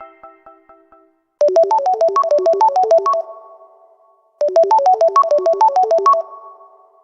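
Samsung Galaxy Note 2 ringtone: a quick run of electronic keyboard-like notes, about eight a second, played twice with a pause of about a second between, each run ending in a short ring-out. The tail of a previous tone fades out at the start.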